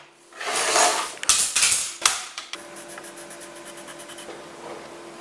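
Cardboard being handled and cut with scissors on a wooden desk: a cluster of loud rustles and knocks over about two seconds. After that comes a quick run of light scratches, like a pencil writing on card, over a steady low hum.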